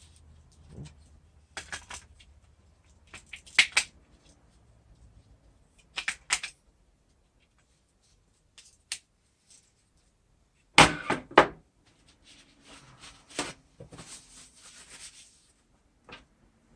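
Scattered clicks, knocks and short rattles of metal parts and tools being handled while the window regulator is put back together, with a quick run of louder knocks about eleven seconds in.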